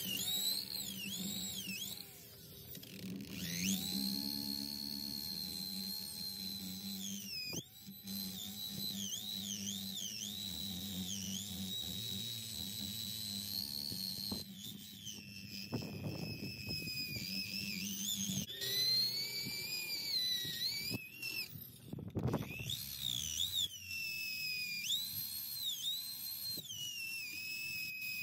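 Drill spinning a 3M adhesive remover (eraser) wheel against car paint to strip leftover trim adhesive. Its high motor whine dips and recovers in pitch over and over as the wheel is pressed on and eased off, with a few short breaks.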